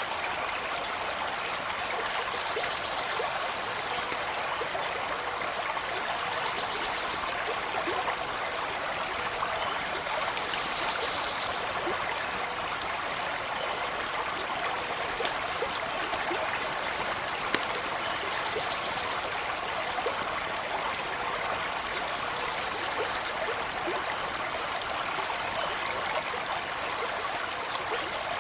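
Small stream running steadily, with scattered sharp pops and crackles from a campfire every few seconds.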